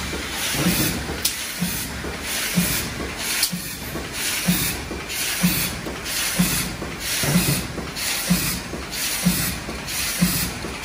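GD33/12X automatic indexing cap-assembly machine running its work cycle: a hiss that swells and fades about once a second, each beat with a short low knock, over a steady low hum.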